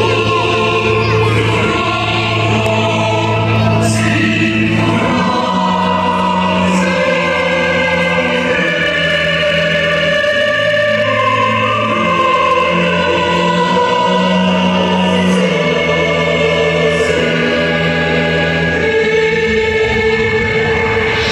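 Music with a choir singing long held notes over a sustained low tone, the chords changing every second or two.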